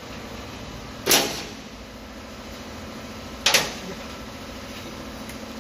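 Makita DTW700 18V cordless impact wrench fired in two short bursts on bolts of an excavator's steel engine cover, the first about a second in and the second two and a half seconds later. A steady low hum runs underneath.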